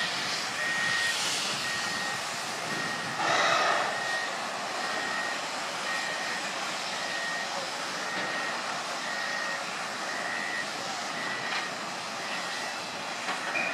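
A vehicle's reversing alarm beeping steadily, about three beeps every two seconds, over a constant rushing noise from the shipbreaking yard. A brief louder rush of noise comes about three seconds in.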